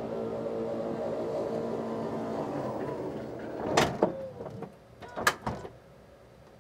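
Power sliding side door of an Airstream Interstate 24GT Mercedes-Benz Sprinter van closing on its electric motor with a steady hum, then latching shut with a loud thunk near four seconds in, followed by a second knock about a second and a half later.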